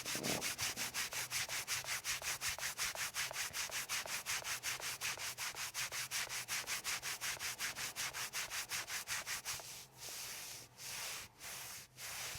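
Hands rubbing briskly over a patient's back: a rapid back-and-forth swishing, about six strokes a second. Near the end it slows to longer, slower strokes.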